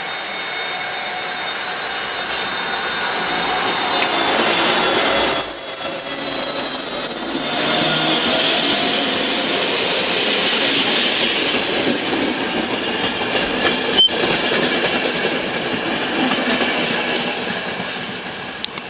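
Electric-locomotive-hauled passenger train rolling past close by: steady wheel and coach rumble that swells as the coaches pass and fades as the train moves away. About five seconds in, a high steady wheel squeal rings out for about two seconds, and a single sharp click is heard about 14 seconds in.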